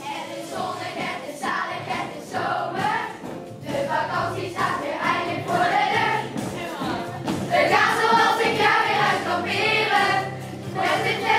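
Group of children singing together as a choir, with instrumental accompaniment.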